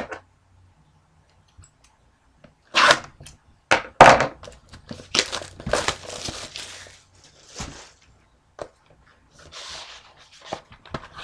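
A sealed trading card box being unwrapped and opened: after a short quiet, a run of sharp tearing and crinkling of its wrapping from about three seconds in, then softer rustling and small knocks of cardboard.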